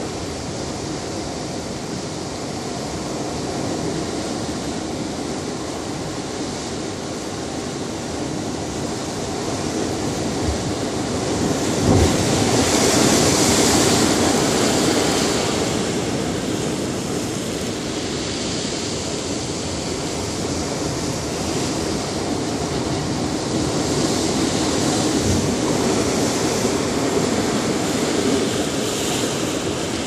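Ocean surf breaking on a rocky shoreline and washing through the rocks: a steady rush of foam that swells as waves come in, with a heavier wave crashing with a low thump about twelve seconds in and another surge building near the end.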